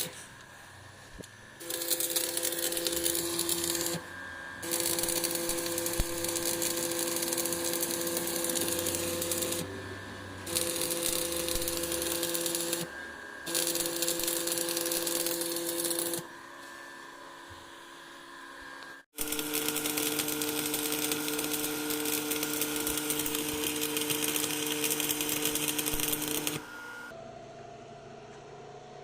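Arc welding: the arc crackling in runs of a few seconds with a steady hum under it, stopping and restarting several times.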